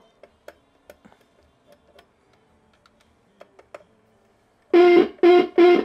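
Marshall JCM800 2203 valve amp playing through its speaker: faint scattered crackles and pops, then near the end a loud steady-pitched tone pulsing on and off about three times a second. This is an intermittent fault that comes and goes as the preamp valve socket is pressed.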